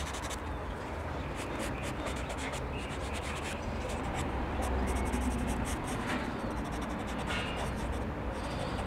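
Pastel pencil scratching on paper in short, repeated shading strokes, over a low steady hum.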